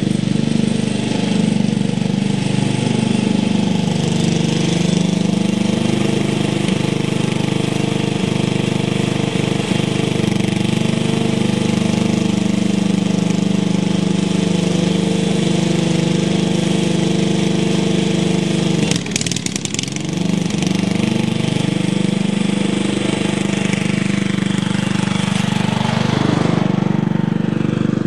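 1980 Montgomery Ward lawn tractor's 10 hp Briggs & Stratton single-cylinder engine running steadily as the tractor is driven across the lawn. A brief noise breaks into the engine sound about two-thirds of the way through. Near the end the engine note falls in pitch as the tractor passes.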